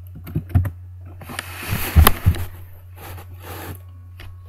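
Computer keyboard being typed on: a quick run of keystrokes in the first second, then a single loud key strike about two seconds in as the message is sent. Two stretches of hiss come and go between about one and four seconds, over a steady low hum.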